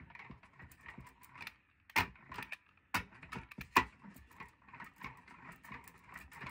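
A rubber brayer rolled back and forth through tacky printing ink on a metal baking sheet, making a steady crackly, sticky hiss. A few sharp clicks come about two, three and nearly four seconds in.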